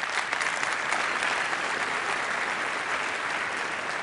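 Large theatre audience applauding: dense, steady clapping of many hands.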